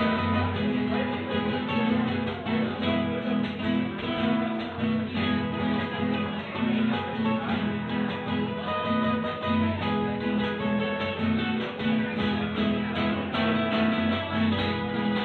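Acoustic guitar music, strummed and picked with many quick notes, over a steady low bass part.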